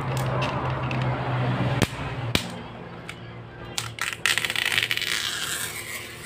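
Metal bezel frame of an LCD TV panel being pried open by hand: two sharp metallic clicks about two seconds in, then a burst of crackling scraping as the edge is worked loose with a tool. A low hum runs under the first couple of seconds.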